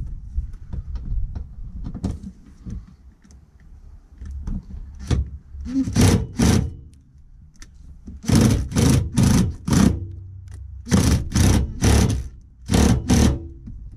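Cordless impact driver run in short bursts on a bolt under the car: about a dozen bursts in three or four groups, starting about five seconds in. The bolt is being worked gently so that it does not snap.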